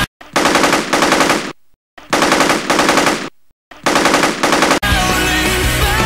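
Three bursts of rapid full-auto fire from an airsoft gun, each about a second long with short silent gaps between, with little bass in the pops. Rock music breaks off for the bursts and comes back in near the end.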